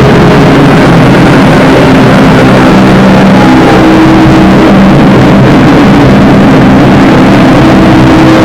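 Loud drone/noise music: a wall of distorted noise with sustained droning tones, held at a steady level and shifting pitch about three seconds in.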